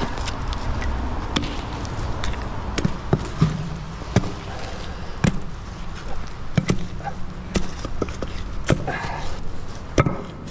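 Irregular heavy knocks and clunks, about a dozen, as a big, old, crusty metal object is hauled out of the canal on a fishing magnet, over a steady low rumble.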